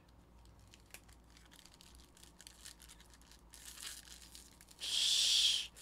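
Foil wrapper of a baseball card pack crinkling faintly as it is handled, then ripped open with one loud tear lasting just under a second near the end.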